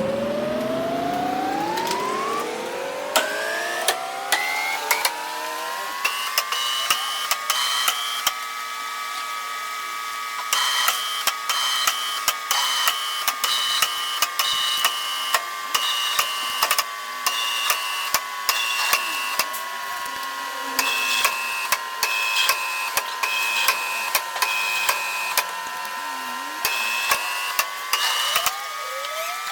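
Metalworking machine tool running, its pitch rising over the first six seconds and then holding steady, with repeated short high-pitched chirps and clicks throughout.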